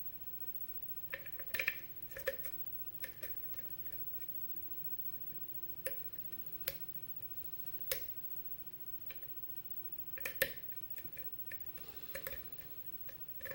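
Lock pick working the pin stack of a six-pin Sargent lock cylinder under tension: irregular sharp metallic clicks, some in quick clusters and some single, as the pick lifts pins and pins set or drop.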